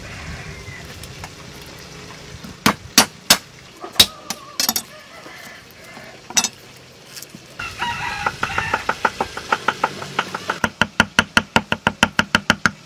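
Cleaver chopping garlic on a wooden chopping board: a few scattered sharp knocks, then fast, even chopping at about eight strokes a second near the end as the garlic is minced. A pitched calling sound runs for a few seconds in the middle.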